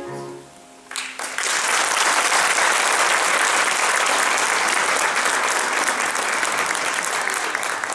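An audience applauding, starting about a second in as the last sung note of a song dies away, and holding steady.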